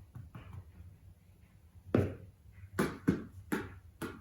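An American Shorthair cat's paws thudding on the floor as it runs: a quick, uneven run of dull footfalls like hoofbeats, starting about two seconds in.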